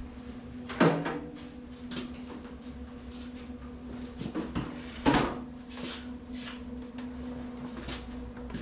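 Steady electrical hum with two sharp metal knocks, one about a second in and one about five seconds in, and lighter clicks between them: metal parts being handled and set up for welding.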